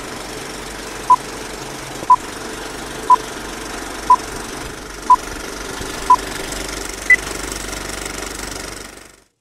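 Vintage film projector running with a steady clatter and hiss, under film-leader countdown beeps once a second: six identical beeps, then a seventh higher-pitched one. The sound fades out near the end.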